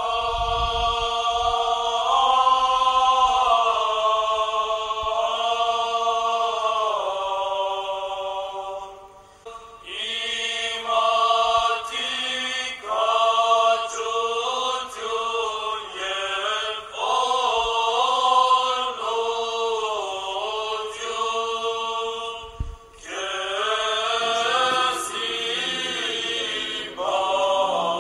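Background music: a sung chant of long held notes that slowly bend in pitch, in phrases that pause twice.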